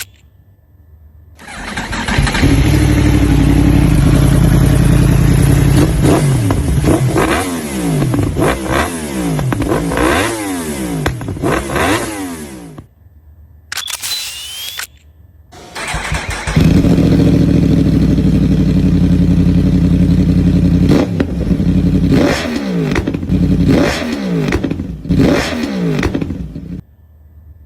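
2021 Yamaha YZF-R1's crossplane inline-four with an aftermarket SC Project exhaust, started up and idling, then blipped through a string of quick free revs. It cuts off about thirteen seconds in, and a second run of idling and sharp revs follows about three seconds later.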